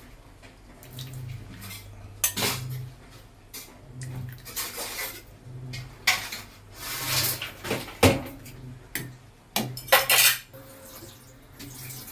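Metal utensils clinking and scraping against dishes and a pot in irregular bursts, with the sharpest clatters about eight and ten seconds in.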